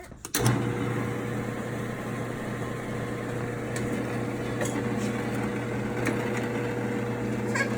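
The 1.5 hp electric motor of a kid-size Kobelco Super Shovel digger, converted from gas, starting about half a second in and then running with a steady hum. A few light clicks are heard over it.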